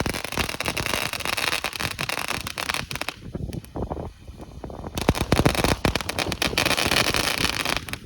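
Firework fountain spraying crackling sparks: a dense, continuous crackle that eases off about three seconds in, surges again a couple of seconds later, and stops just before the end.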